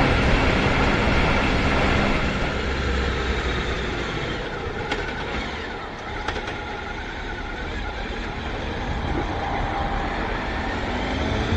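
A vehicle running, with a steady broad noise throughout; an engine tone climbs in pitch near the end.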